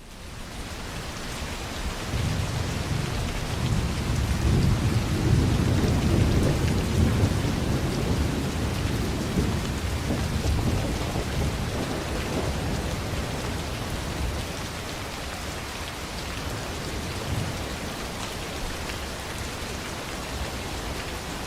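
Heavy rain falling steadily, with a long low rumble of thunder that swells over the first few seconds, peaks, and fades away after about ten seconds.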